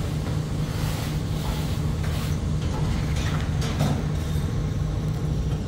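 An engine running steadily with a constant low hum, with a few faint knocks and clatters of ride parts being handled.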